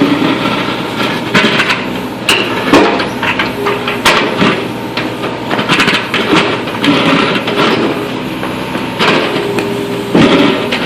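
Excavator digging into asphalt: its engine runs steadily while the bucket scrapes and knocks against the pavement, with many sharp clanks and stretches of grinding scrape.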